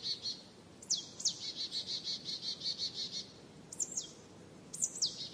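A songbird singing in an evening forest, over a faint background hiss. Each song opens with a quick high downward-sliding note, then runs into a fast, even trill of repeated notes. One full song comes about a second in, and another starts near the end.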